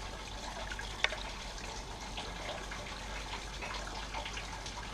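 Steady hiss of running water, with a single light click about a second in.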